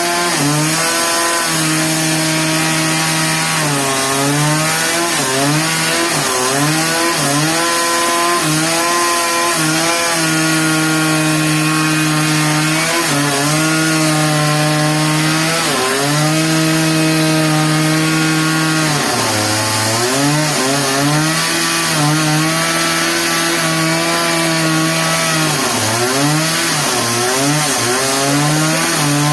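Engine-driven saw cutting through wood at a steady high run. Its pitch sags and recovers again and again as the blade loads up in the cut, with the deepest sag about two-thirds of the way through.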